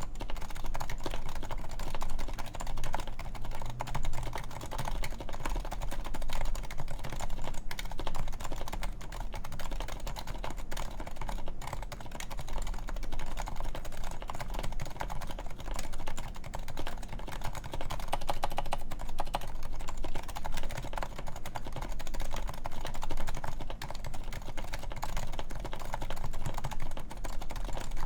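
Continuous fast typing on a Topre Realforce 104UB keyboard with 45g electrocapacitive Topre switches, their sliders silenced and lubed: a dense, unbroken stream of keystrokes.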